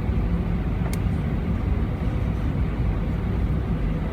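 Steady low rumble of an Airbus A320-family airliner's cabin as the jet rolls on the ground with its engines running, ahead of takeoff. A single light click about a second in.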